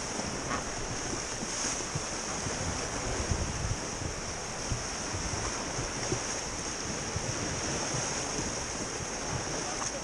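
Steady rush of whitewater rapids on the Ganges around an inflatable raft, with wind buffeting the action camera's microphone.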